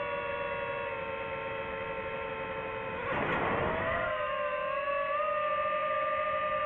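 DJI FPV drone's four motors and propellers whining steadily. About three seconds in, a brief rush of noise comes as the throttle is pushed, and the whine then holds at a slightly higher pitch and louder.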